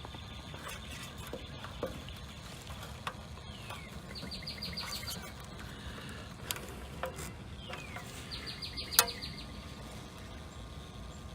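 A songbird singing twice, each song a falling note followed by a quick trill of repeated high notes, over steady low background noise. A few sharp clicks are heard, the loudest near the end.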